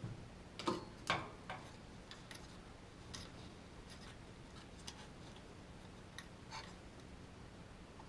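Scattered light clicks and taps of small handwork, several sharp ones close together in the first second and a half, then sparser ones, over a faint steady hum.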